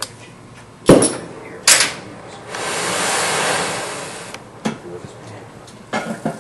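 Oxy-fuel brazing torch being lit: two sharp bangs about a second apart, then the hiss of the burning torch, which swells and then eases off as the flame is turned up from a yellow flame to a blue one and set toward a neutral flame.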